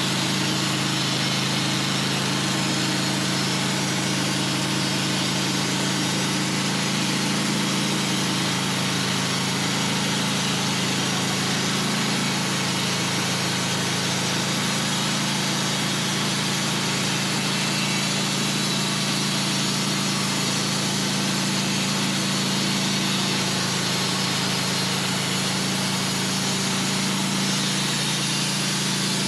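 Manual portable sawmill's engine running steadily at a constant pitch as the blade saws through a large white pine log, with an even hiss of cutting over the engine hum.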